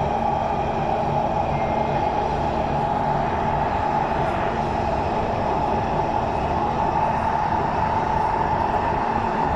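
SMRT MRT train heard from inside the carriage while running between stations: a steady rumble of wheels on the rails with a constant motor hum underneath.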